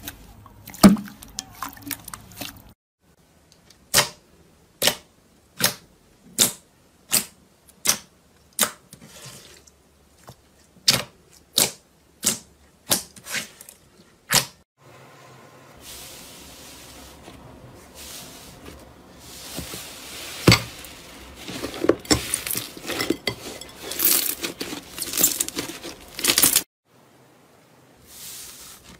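Slime being played with by hand. First come about a dozen sharp pops, roughly one a second, then a long stretch of dense squishing and crackling that grows louder before it cuts off.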